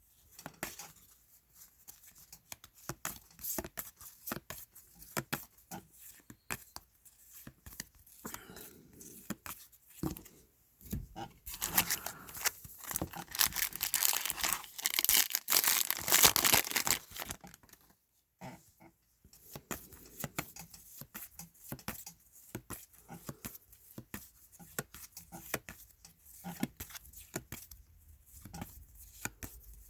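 A foil trading-card pack being torn open, a dense crinkling tear lasting about six seconds that starts about eleven seconds in, among the light clicks and flicks of cards being handled and flipped through.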